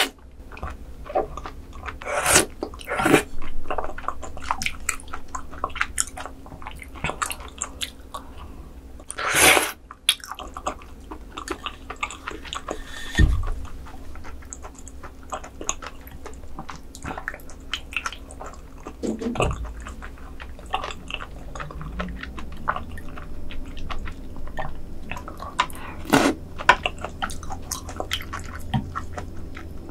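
Close-miked chewing of raw squid sashimi and sea cucumber intestines: many small mouth clicks, with a few louder bites.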